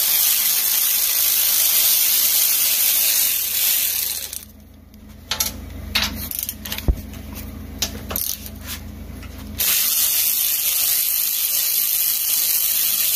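Power ratchet with a half-inch socket running nuts off the mower's discharge-chute bolts, with a steady hiss. It stops for about five seconds midway, leaving a few light metallic clicks and a knock as the loosened hardware is handled, then runs again.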